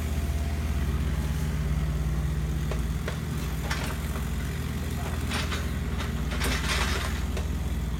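Large engine idling steadily, a low even hum, with a few scattered knocks and clatters on top.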